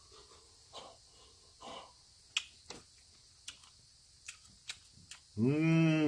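A man drinking from a liquor bottle with a couple of soft swallows, then a few sharp clicks. About five seconds in comes a loud, drawn-out voiced 'aah' after the drink.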